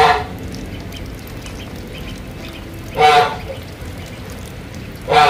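Duckling calls: three short, loud calls with a clear pitch, one at the start, one about three seconds in and one at the end, over a steady low background hiss.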